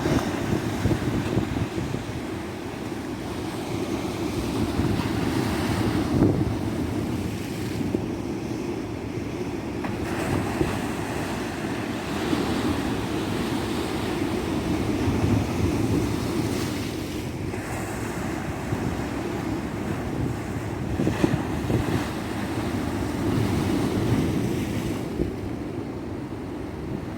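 Ocean surf breaking and washing on a beach, a continuous rushing that swells and eases every few seconds, with wind buffeting the microphone.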